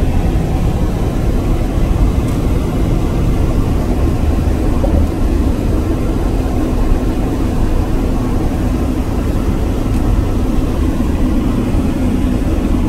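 Steady rumble of road and wind noise from a car travelling at highway speed, with a low hum.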